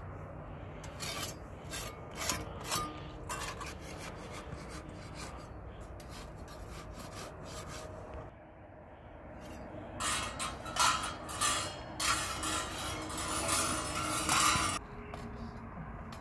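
Close rubbing and scraping as flatbread is handled on a metal saj griddle over a wood fire: scattered rubs in the first few seconds, then a dense, harsh stretch of scraping from about ten seconds in that stops sharply about five seconds later.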